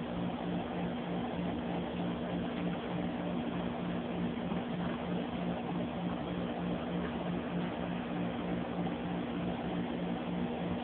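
Steady mechanical hum with a hiss, its low tone pulsing at an even rhythm.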